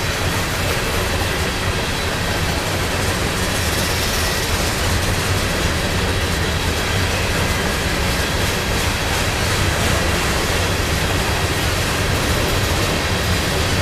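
Covered grain hopper cars of a long freight train rolling past, a steady rumble of steel wheels on the rails.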